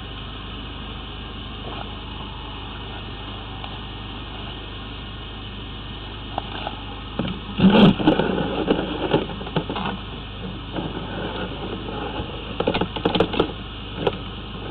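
Steady low engine hum from a high-pressure drain jetter running. From about halfway, loud irregular knocks and rubbing as the drain camera and hose are handled and pushed down the clean-out opening.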